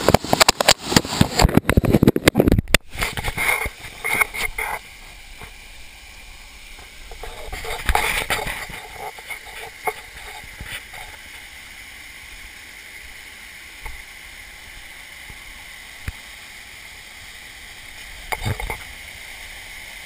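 Clicks and knocks of a camera being handled and shut into its waterproof housing for about five seconds, then the steady rush of a small waterfall, muffled through the housing.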